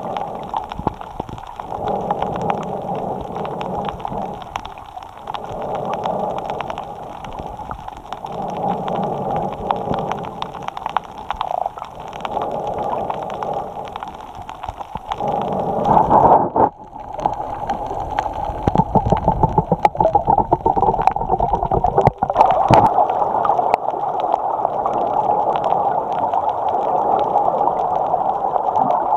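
A snorkeler breathing through the snorkel, picked up through the waterproof camera housing clamped to the snorkel: muffled, slow in-and-out breaths that swell every few seconds. About halfway through the breathing turns into a louder, steadier rush of air and water with some gurgling.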